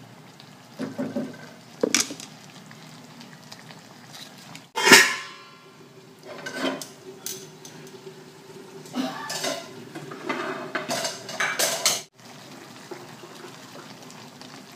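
A utensil stirring chicken livers in a metal wok, knocking and scraping against the pan several times, and a metal lid set down on the wok with one loud clang that rings briefly, about five seconds in.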